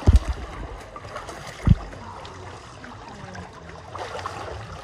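Water sloshing and splashing close to the microphone, with two low thumps: one right at the start and another just under two seconds in.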